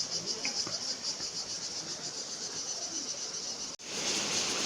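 Insects calling in a steady, pulsing high-pitched chorus. About four seconds in, the sound cuts out for an instant and a louder steady rushing hiss takes over.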